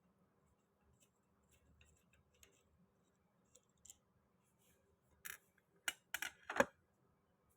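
Light clicks and knocks of hand tools and hardware being handled during a door repair: faint scattered ticks, then a short cluster of sharper clicks and knocks about five to seven seconds in.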